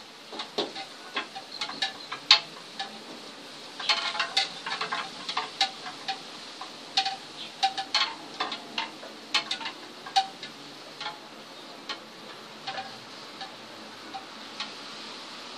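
Light, irregular clicks with a short metallic ring: the tip of a hobby wood-burning pen tapping and dabbing on a wooden board. The clicks come thickest in flurries around four and eight seconds in and thin out toward the end.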